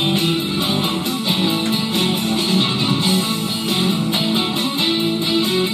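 Guitar-led music playing steadily, with strummed chords.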